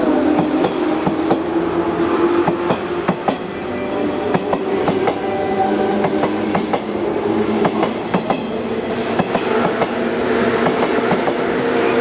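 Electric train running on the rails, its wheels clicking over the rail joints many times while a motor hum slowly rises in pitch.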